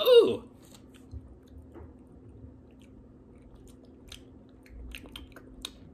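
A person chewing a KitKat wafer: faint, scattered mouth clicks and small crunches, a little busier about four seconds in.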